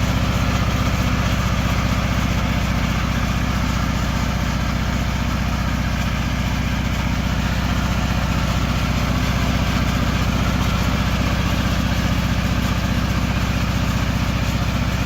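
Riding lawn mower's engine running at a steady, unchanging speed, a low even drone.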